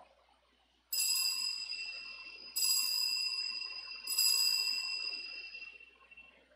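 Altar bell struck three times, about a second and a half apart, its ringing carrying over between strikes and fading away after the third. This is the bell rung at the elevation of the chalice just after the consecration at Mass.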